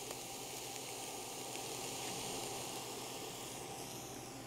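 Shredded cabbage and carrots sautéing in a frying pan, a steady sizzle.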